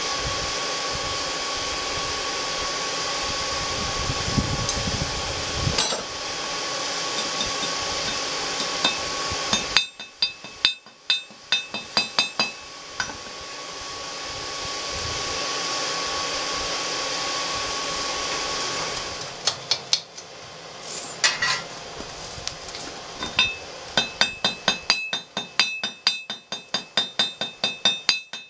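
Forge air blower running steadily as the rebar heats, then a hammer striking hot 3/8-inch rebar on an anvil in quick runs of blows, about three a second, with ringing clinks. The blower comes on again for a few seconds between the two runs of hammering.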